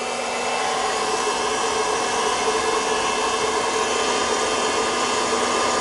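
Proctor-Silex hot-air popcorn popper running: its blower fan and heater make a steady whirring hum with a constant tone. The kernels are still heating and none are popping yet.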